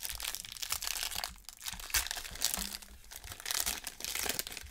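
Foil wrapper of a Topps baseball card pack crinkling and tearing as it is ripped open by hand, a quick run of crisp crackles.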